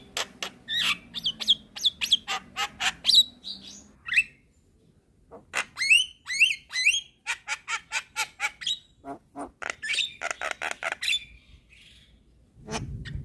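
Javan myna (jalak kebo) singing: rapid runs of harsh clicks and short squeaky chirps, in bursts broken by two brief pauses.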